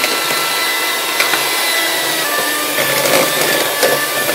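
Philips electric hand mixer running steadily, its beaters whisking a margarine, sugar and egg-yolk batter with cornstarch in a metal bowl. The motor's whine drops slightly in pitch about two seconds in.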